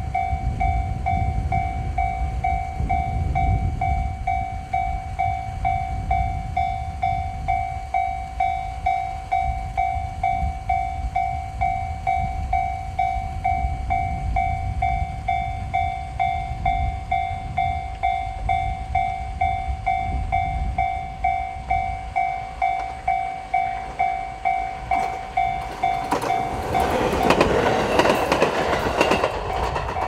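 Japanese level-crossing alarm ringing its steady, evenly repeating electronic bell while the barriers are down. Near the end a train passes over the crossing with a short rush of wheel and rail noise, which is the loudest part.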